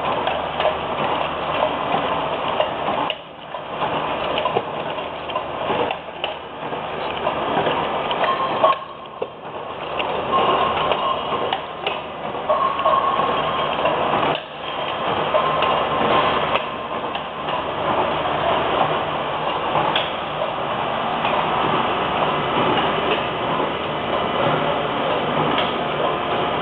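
Beverage-can washing, filling and sealing machinery running with a steady mechanical clatter, dipping briefly a few times.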